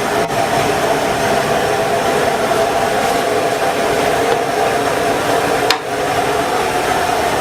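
Steady, loud rushing noise with a hum running under it, like a blower or burner, with one short knock about six seconds in.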